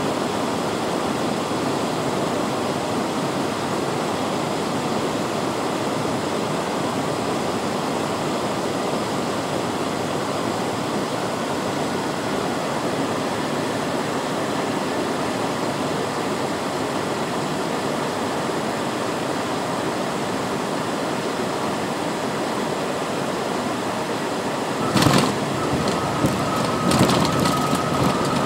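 Steady cockpit noise of a Cessna Citation Encore twin turbofan jet on short final: engine and airflow noise. About 25 s in, a sudden thump and clatter as the wheels touch down on the runway, followed by a rolling rumble and a thin steady tone.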